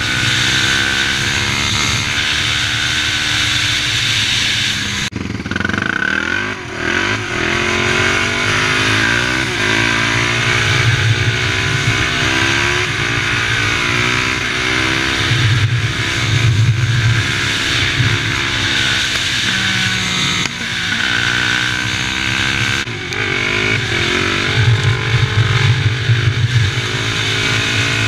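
Single-cylinder four-stroke sport quad engine under hard acceleration on the road, revving up and dropping back as it shifts through the gears, its pitch climbing and falling again and again.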